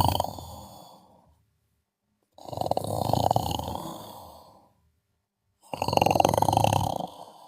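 Sleeper snoring in a slow, even rhythm. One snore fades out in the first second, a second starts about two and a half seconds in, and a third starts about six seconds in. Each begins suddenly and loud, fades over about two seconds, and is followed by a pause of quiet.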